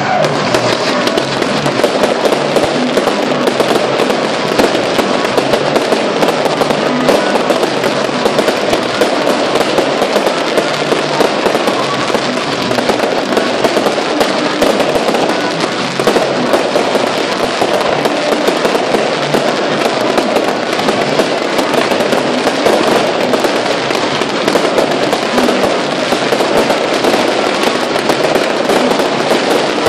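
Fireworks barrage: a dense, unbroken volley of rapid bangs, pops and crackles from many aerial bursts and ground fountains firing at once, holding steady in loudness throughout.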